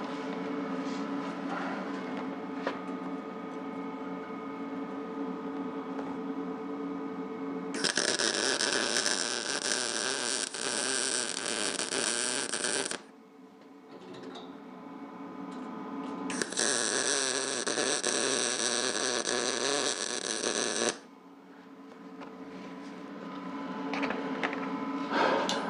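MIG welding arc sizzling in two welds of about five seconds each, the first about eight seconds in and the second about sixteen seconds in, each starting and stopping abruptly, over a steady hum.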